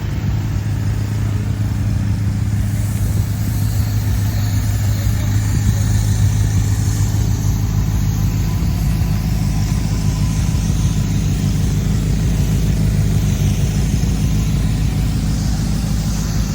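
BMW M5's 4.4-litre twin-turbo V8 idling steadily.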